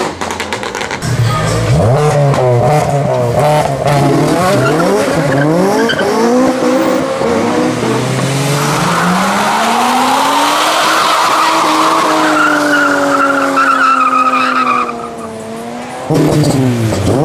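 Modified cars accelerating hard past one after another, engines revving up and falling back through the gears. Tyres squeal for several seconds midway, as a car spins its wheels and leaves tyre smoke.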